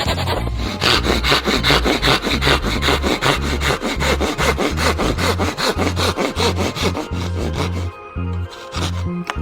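Saw cutting through wood with rapid, even strokes that stop about 8 seconds in, over background music with a steady repeating bass line.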